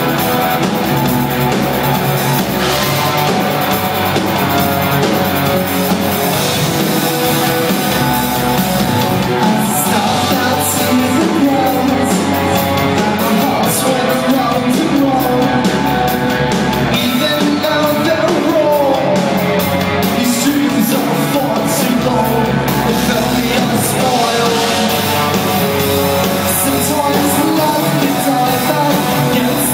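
A rock band playing live: electric guitar and drums under a singer's voice.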